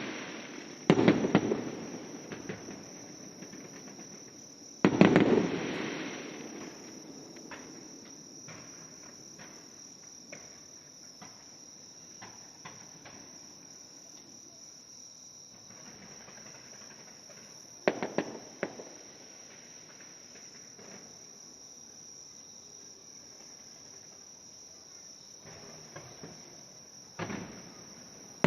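Aerial fireworks shells bursting with loud booms that echo away: a pair about a second in, another about five seconds in, one after about eighteen seconds and one near the end, with scattered small crackles between. A steady high insect trilling runs underneath.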